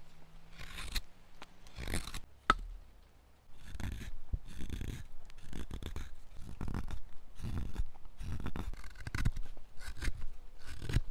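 Hand-carving knives slicing wood in repeated short scraping strokes, about one or two a second: a hook knife scooping and a straight carving knife whittling. A single sharp click about two and a half seconds in is the loudest sound.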